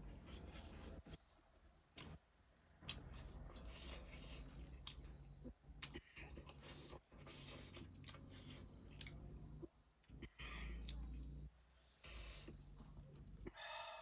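Close-up eating sounds: chewing and lip-smacking with many sharp, wet mouth clicks as rice and pork curry are eaten by hand from a steel plate, with a few short hissy sounds near the end.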